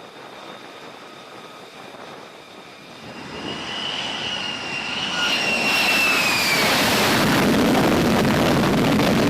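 Jet aircraft engine: a high whine that drifts slightly lower, under a rush of engine noise that builds from about three seconds in and stays loud to the end.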